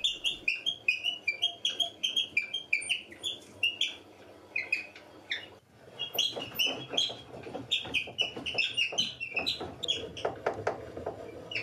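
Quick, irregular bird-like chirping squeaks from the homemade table saw's blade-tilt mechanism as it moves: a dry squeak that calls for lubrication. The squeaking breaks off briefly about halfway, and light mechanical clicks join it in the second half.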